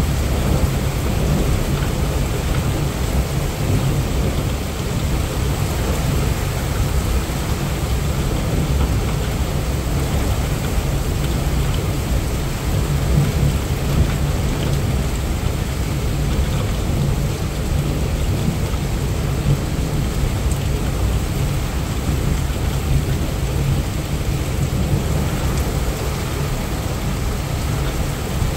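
Heavy rain pouring steadily, heard through a mobile phone's microphone, with a continuous low rumble underneath.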